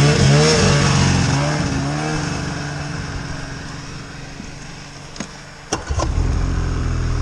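Snowmobile engine revving up and pulling away, its sound fading over a few seconds. Near the end come a few sharp clicks, and then a nearer engine running steadily.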